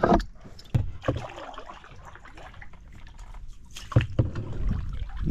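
Paddling a wooden canoe: a few sharp knocks and splashes of paddle and water against the hull, over steady water noise that grows louder near the end.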